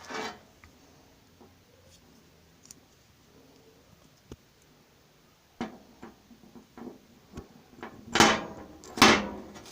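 Handling noise: small plastic clicks and knocks as a flashlight's AAA battery holder is fitted back into the flashlight, with a run of light ticks partway through and two louder bumps near the end.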